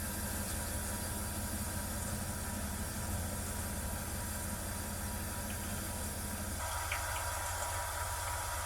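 Heavy machinery engine running steadily, a constant low hum with a hiss over it. About six and a half seconds in, the sound changes abruptly: the lower hum thins and a higher hiss takes over.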